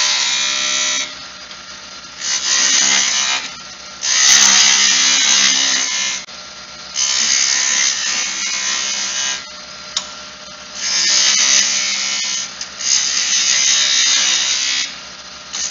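Skew chisel cutting a wooden spindle spinning on a wood lathe, rounding over the beads with the short point: about six cuts, each a second or two long, with the lathe's steady motor hum in the gaps between them.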